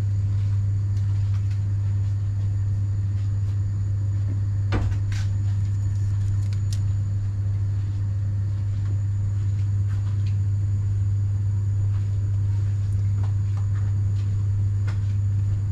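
A steady low hum runs throughout, with a knock about five seconds in and a sharp click shortly after.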